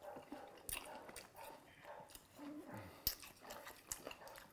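Quiet chewing of fruit salad, with a few sharp clicks and a short low murmur near the middle.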